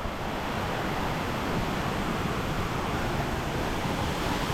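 Steady rushing of falling water, a constant roar with no breaks.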